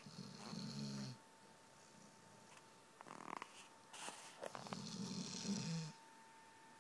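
Dog snoring: two long snores about four seconds apart, each a low rumble with a hiss of breath.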